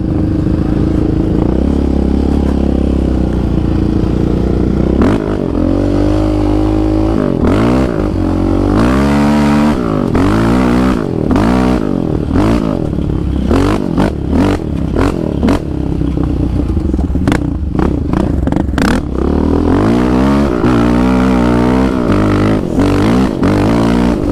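Yamaha Raptor 700R sport quad's single-cylinder four-stroke engine being ridden, revving up and easing off over and over as the rider works the throttle and gears, with occasional short knocks.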